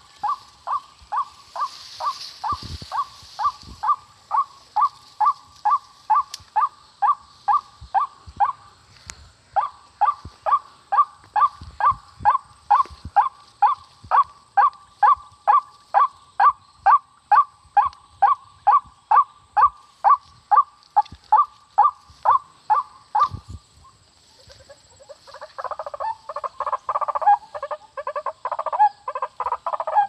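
White-breasted waterhen calling: a long monotonous run of short notes, about two to three a second, with a short break about nine seconds in, stopping near 24 seconds. A few seconds later it starts a louder, jumbled croaking run of calls.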